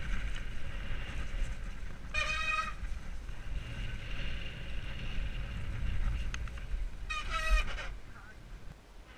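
Mountain bike riding fast down a dirt trail: a steady rumble of wind on the helmet-mounted microphone and tyres on the ground, with two brief high, horn-like squeals, one about two seconds in and one about seven seconds in. The rumble eases near the end as the bike slows.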